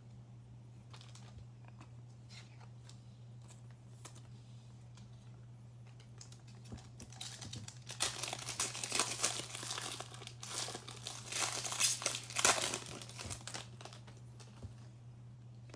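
Foil wrapper of an NBA Hoops basketball card pack being torn open and crinkled by hand, loudest from about seven seconds in. Before that, only light handling clicks over a steady low hum.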